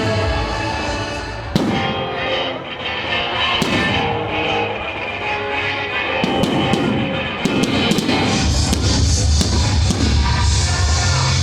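Music playing loudly, with several sharp firework bangs over it, the loudest about a second and a half in; the bass gets heavier near the end.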